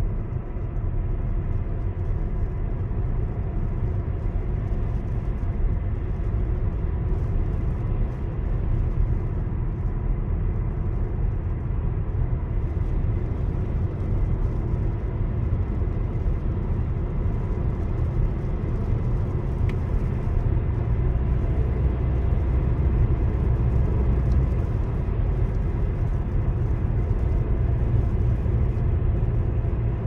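Steady low rumble of a car driving at road speed, engine and tyre noise heard from inside the cabin, growing slightly louder in the second half.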